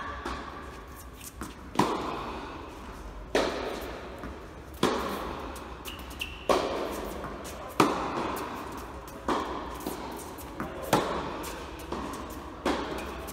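A series of sharp hits, about one every second and a half, each trailing off with an echo, over a low steady hum.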